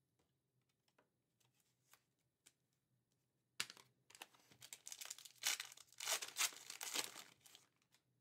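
A foil trading-card pack wrapper being torn open and crinkled. It starts with a sharp rip about three and a half seconds in and goes on as dense crinkling for about four seconds. Before that there are only faint ticks of cards being handled.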